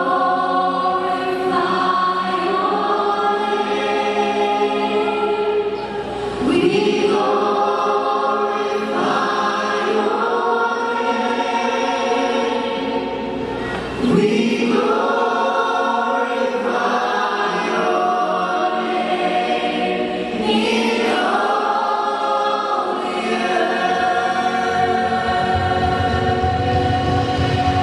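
Worship band and a crowd of voices singing a slow praise song, holding long notes in phrases a few seconds apart. A low beat, likely drums and bass, comes in near the end.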